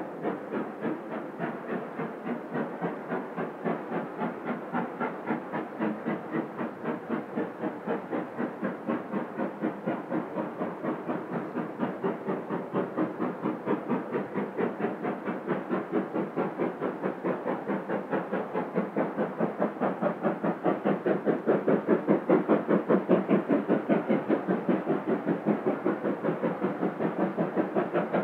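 B1 class 4-6-0 steam locomotive, a two-cylinder engine, working a train with an even rhythm of exhaust beats, about three to four a second. The beats grow louder after the midpoint as the engine draws nearer.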